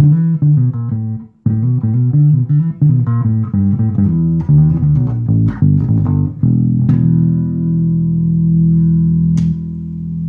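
1998 Rickenbacker 4003 electric bass with roundwound strings, played with its treble tone control turned fully down: a run of plucked notes with a short break about a second and a half in, then one note left ringing through the last few seconds, with a small click near the end.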